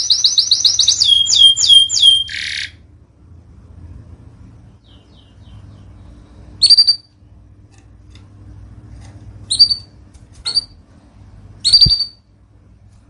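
Canary singing a fast, loud trill of rapidly repeated high notes that breaks into a few falling notes and stops after about two and a half seconds, followed by four short sharp chirps a second or more apart.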